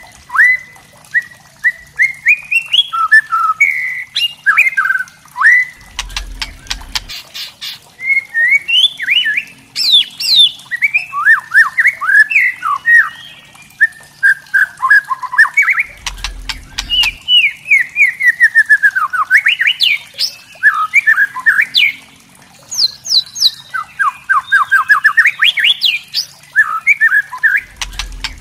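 White-rumped shama singing a fast, varied run of whistled and chattering phrases. The song is broken about three times by short bursts of rapid dry clicking, the harsh 'kretek' rattle.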